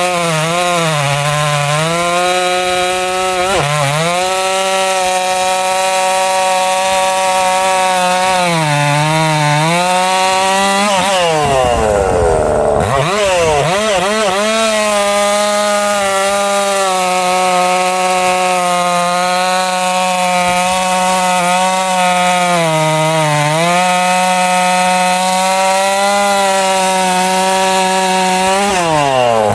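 Husqvarna 262XP two-stroke chainsaw cutting through a big log at full throttle, its pitch sagging briefly under load several times. About halfway it drops to idle for a moment and revs back up, and near the end it comes off the throttle.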